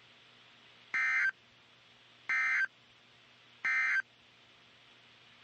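NOAA Weather Radio EAS end-of-message signal: three short bursts of high-pitched SAME data tones, about a second apart, marking the end of the alert, over a faint steady hum.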